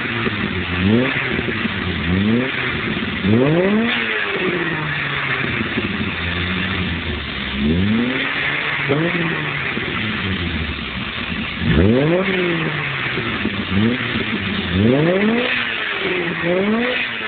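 Exhaust of a VW Golf Mk1's 1.8-litre 8-valve four-cylinder (DX engine) as the engine is revved over and over in short blips, each one rising sharply in pitch and falling back toward idle.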